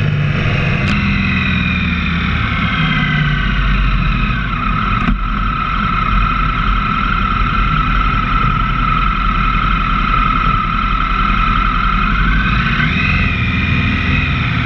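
Motorcycle engine heard from the bike itself while riding, with a steady rush of wind and road noise. The engine note falls over the first few seconds as the bike slows, holds steady through a bend, then rises again near the end as the bike accelerates away.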